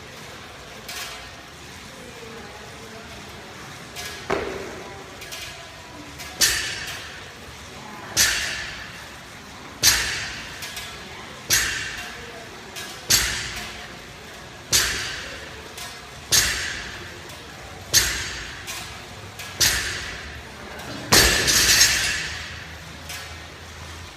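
Pistol shots fired one at a time at a steady pace, about a dozen of them, each followed by a short echoing decay. The last two come close together near the end.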